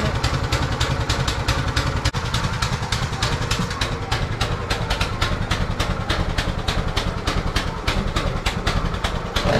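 Massimo Warrior MB200 mini bike's single-cylinder four-stroke engine idling steadily with an even, rapid firing pulse, warming up just after a cold first-pull start.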